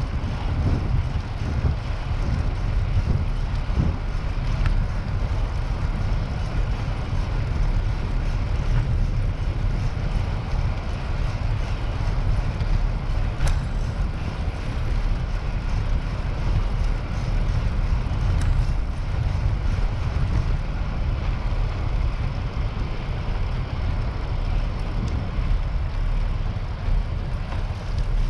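Steady low wind rumble buffeting the microphone of a camera carried on a moving bicycle.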